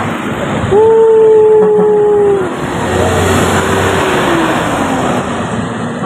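A passing intercity bus sounds its horn: one long steady blast of about two seconds, then a fainter horn note that slides down in pitch as the bus goes by. Under it runs the noise of the bus's engine and tyres.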